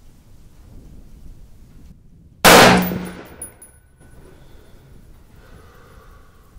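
A single shot from an AR-15 carbine, fired about two and a half seconds in: one sharp, loud report that dies away over about a second, leaving faint ringing. It is one aimed shot of a group being fired to zero the rifle.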